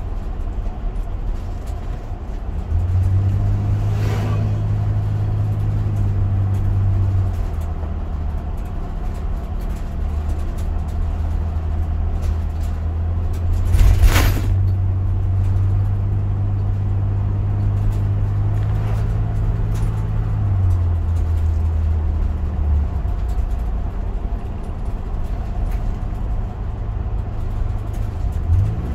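Car driving, heard from inside the cabin: steady engine and road noise, with a low engine hum that steps up and down in pitch several times. A sharp knock comes about 14 seconds in, with a fainter one about 4 seconds in.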